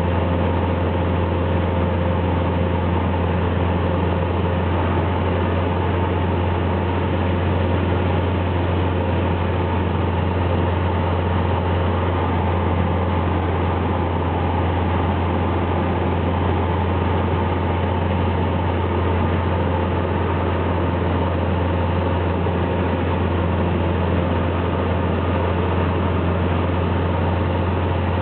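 Cessna 172 Skyhawk's piston engine and propeller heard from inside the cabin in level flight: a loud, steady drone with a strong low hum and no change in pitch.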